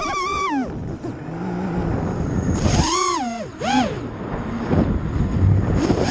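Racing quadcopter's electric motors and propellers whining, heard from the drone's own camera, the pitch swooping up and falling away as the throttle is punched and released: a falling whine in the first half second, a rise and fall about three seconds in, a short burst just after, and another near the end. Wind rush fills the gaps between.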